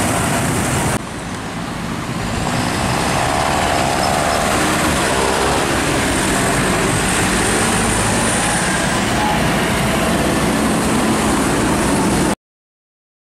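Farm tractors driving past one after another on a road, their diesel engines running and their tyres on wet tarmac. The sound cuts off abruptly near the end.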